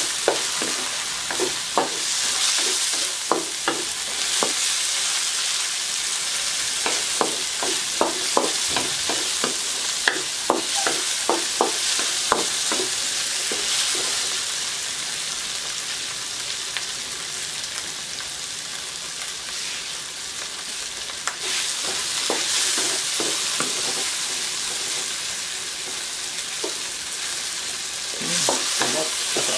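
Sliced tomatoes, onions and garlic sizzling in hot oil in a coated wok, with a steady hiss. A wooden spatula stirs and presses the tomatoes, tapping and scraping against the pan many times; the taps come thickest in the first half and thin out later.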